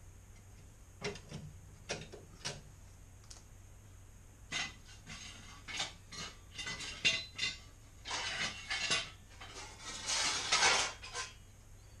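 Metal gas-boiler burner tubes clinking and knocking against each other as they are handled, with a plastic bag crinkling. A few isolated clinks at first, then a busy run of clanks and rustling in the second half.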